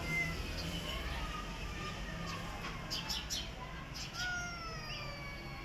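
Two cats growling and yowling at each other in a standoff: long, drawn-out wavering wails, with one louder wail falling in pitch about four seconds in. A mother cat is warding off a feral cat from her kittens.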